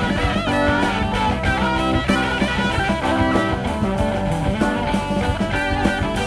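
Instrumental passage of mid-1970s progressive rock: electric guitar with bass and drums keeping a steady beat.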